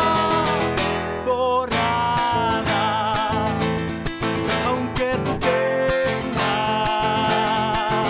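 Music led by acoustic guitar, with a held, wavering melody line above it.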